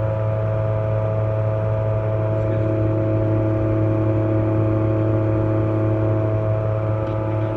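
Steady electrical hum from a Lincoln Power Wave 455M welding power source running on test, with a cooling-fan whir and several steady whining tones over it. No change throughout.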